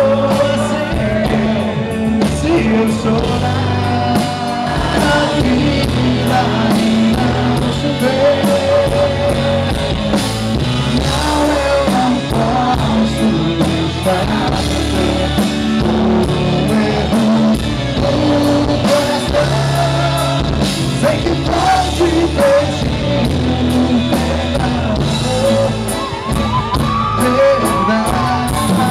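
Gospel band playing live: a singer over drums, bass and guitar at a steady, loud level.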